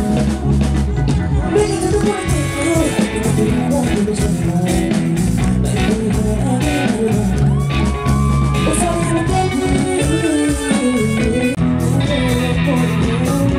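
Live band playing a pop-rock song: a male vocal sung into a microphone over electric guitar and bass guitar.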